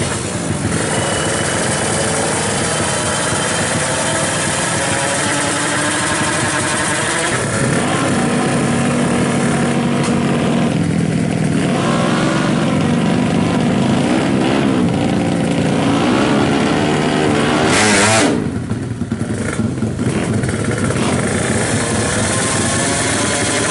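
A Ninja-based 350cc drag racing motorcycle engine running loudly and being revved up and down, its pitch rising and falling, with one loudest surge a little past halfway before it briefly drops away.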